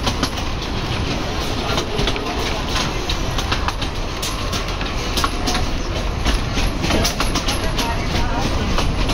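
A train running along the track: a steady rumble with many quick, irregular clicks and rattles.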